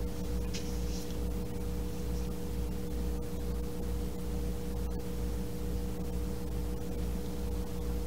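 Steady mechanical room hum: a low, evenly throbbing drone with two steady higher tones over a faint hiss.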